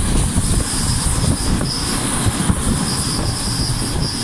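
Local electric train running on the Uchibo Line, heard through a slightly open window: a steady low rumble of wheels on rail with rushing air. A thin high-pitched wheel squeal comes in about half a second in, drops out briefly midway and returns.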